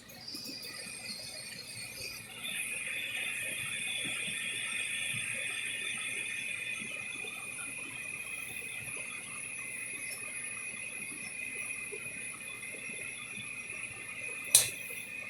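ICP 80% gas furnace running with a steady high hiss that steps up about two seconds in, and one sharp click near the end.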